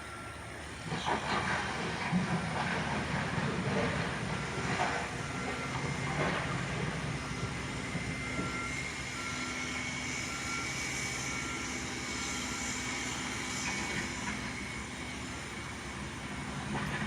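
Backhoe's diesel engine running under load, with scraping and clanking strokes in the first few seconds as it smooths gravel. A faint beep repeats evenly through most of it.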